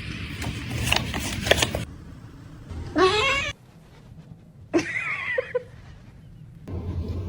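A domestic cat meowing twice: a rising call about three seconds in and a shorter one about five seconds in, after a stretch of clattering noise.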